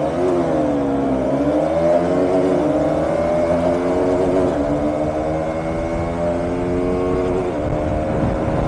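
KTM Duke 200 single-cylinder engine under hard acceleration in a roll-on race. Its pitch drops at a gear change about a second in, then climbs steadily for several seconds, over wind rush on the helmet microphone.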